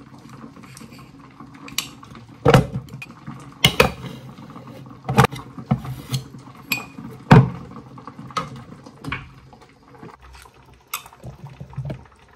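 Metal knife scraping old candle wax out of a candle jar and knocking it into an aluminium pouring pitcher. Irregular clinks, taps and scrapes, the loudest about two and a half and seven seconds in.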